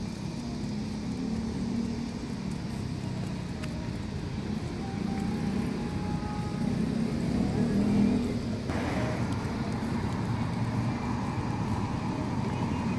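City road traffic: a steady low rumble of passing vehicles, swelling to its loudest about eight seconds in.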